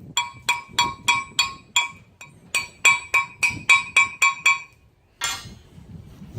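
A hammer rapping steel plate about three times a second, each blow leaving the plate ringing at the same clear pitches, as slag is knocked off a plasma cut in a half-inch grader blade. The blows pause briefly a little after two seconds and stop near five seconds, followed by one short scrape.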